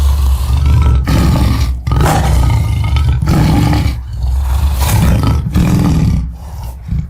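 Designed dinosaur roars for Acrocanthosaurus, layered from film creature roars and big-cat roars: a series of loud, deep roars one after another with brief breaks between them.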